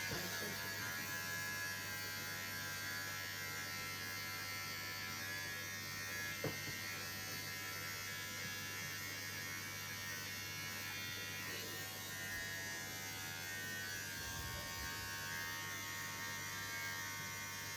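Electric hair clippers running with a steady buzz during a haircut, with one short click about six and a half seconds in.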